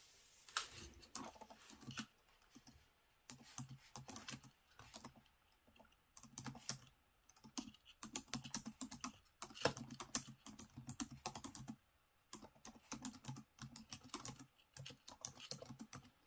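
Fast typing on a computer keyboard: quick runs of key clicks, with brief pauses about two and a half, six and twelve seconds in.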